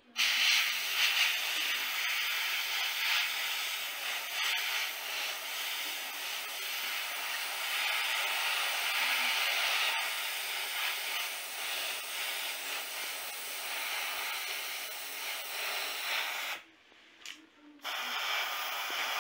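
Airbrush spraying thinned black primer onto a plastic part: a steady hiss of air and paint. Near the end it stops, gives a couple of short puffs, then sprays again briefly.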